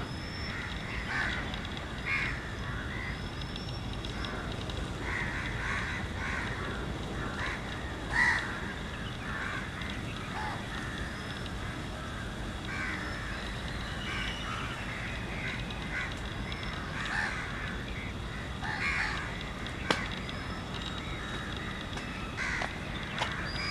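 A feeding flock of flamingos calling: many short calls, scattered and overlapping, over a steady low background rumble, with one louder call about eight seconds in.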